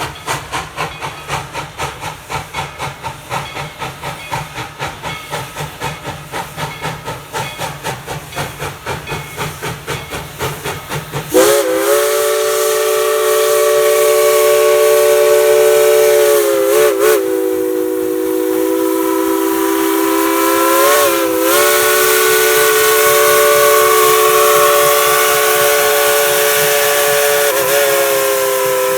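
Tweetsie Railroad #190 steam locomotive chuffing in an even rhythm of about two to three beats a second. About eleven seconds in, its multi-chime steam whistle starts a long blast, a chord of several notes held steady with a few brief pitch bends where the whistle is quilled.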